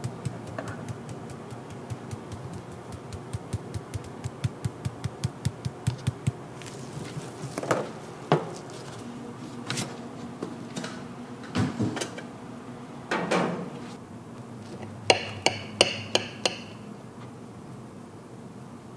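Kitchen utensils knocking against cookware during soufflé pancake making. First comes a rapid, even clicking of about three strokes a second that stops about six seconds in. Then there are a few scattered knocks, and near the end a quick run of sharp clinks that ring briefly.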